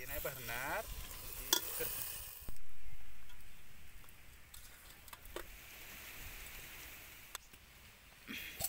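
A steel ladle stirring and scooping chicken curry in a steel cooking pot, with a few sharp metal clinks. A sizzling hiss starts suddenly about two and a half seconds in and slowly fades, and a short metal clatter comes near the end.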